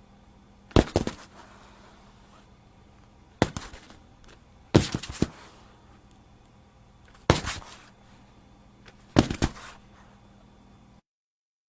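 Body-fall sound effects: five separate falls, each a heavy impact followed by a few smaller knocks as the body settles. The audio cuts to silence near the end.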